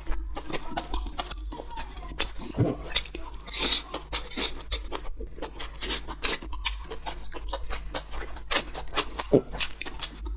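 Close-miked eating sounds: chewing with quick, irregular wet mouth clicks and smacks, over a steady low hum.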